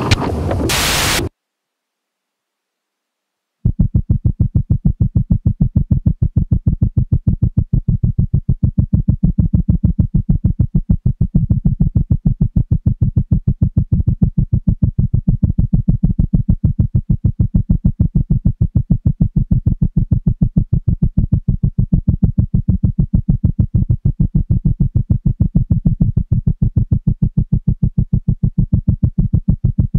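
Experimental electronic music: a loud burst of noise cuts off abruptly into dead silence about a second in. A couple of seconds later a low electronic tone starts pulsing rapidly, about five pulses a second, and keeps on steadily.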